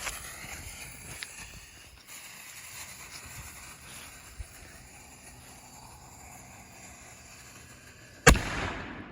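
Low, steady background until, near the end, a consumer canister firework shell goes off with one sharp, loud bang and a short decaying tail, recorded on an iPhone's built-in microphone.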